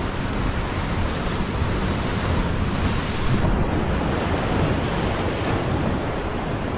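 Surf breaking and washing over a rocky shore, a steady rushing noise, with wind buffeting the microphone.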